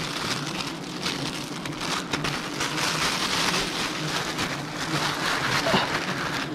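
A swarm of agitated giant honeybees buzzing thickly around, with a steady low hum under a dense crackle. The colony is defending its nest.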